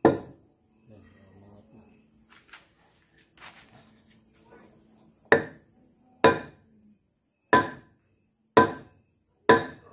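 Wooden club striking a diesel cylinder head clamped in a lathe chuck, knocking it over to centre it on the lathe. One blow comes at the start, then after a pause five more about a second apart, each with a short metallic ring. Crickets chirr steadily in the background.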